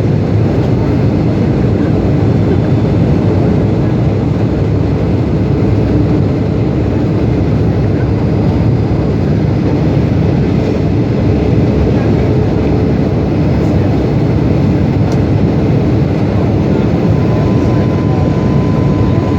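Steady engine and airflow rumble inside the cabin of a Boeing 757-200 in flight on the way in to land. A faint steady tone joins near the end.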